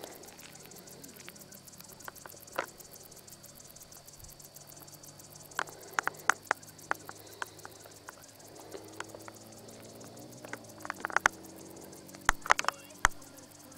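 Handling noise from a handheld camcorder: scattered sharp clicks and knocks, bunched in two short clusters, over a faint steady hum.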